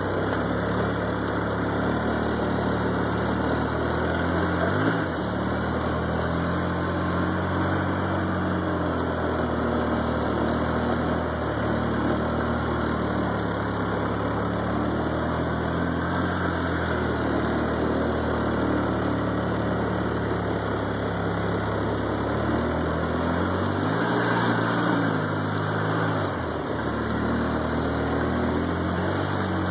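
Polaris ATV engine running under way, its pitch dipping and rising several times as the throttle is eased off and opened again.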